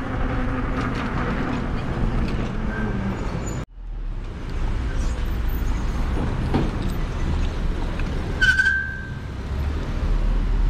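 Road traffic passing while riding along a street, with steady low rumble and noise. A vehicle's engine tone falls over the first three seconds, the sound cuts out for an instant just before four seconds in, and a short high squeal comes about eight and a half seconds in.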